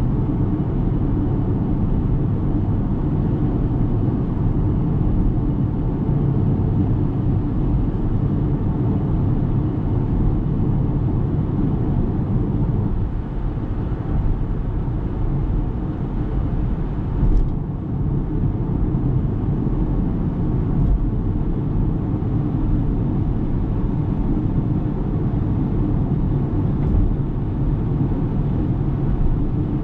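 Steady low road and tyre rumble from a 2023 Ora Good Cat electric hatchback on the move, with no engine note. A single short knock comes about seventeen seconds in.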